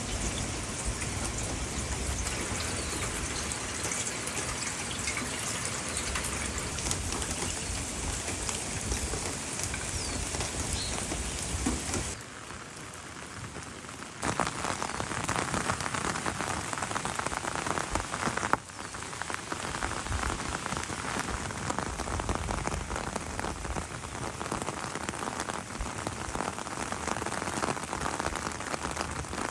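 Steady rain falling, a dense patter of drops. It drops quieter for about two seconds around twelve seconds in, then comes back louder and brighter.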